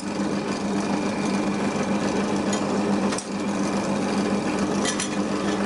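Small bench drill press running steadily with its motor hum. A few metallic clicks come as the steel sheet plate is handled and shifted on the drill table, the clearest a little past halfway.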